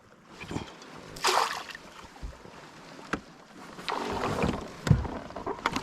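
Handling noises on a fishing kayak: scattered swishes and knocks, with a sharp click about three seconds in and a heavier thump near five seconds.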